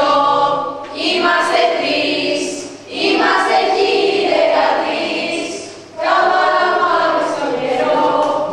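A group of young school students singing together in short phrases of two to three seconds, each phrase starting sharply.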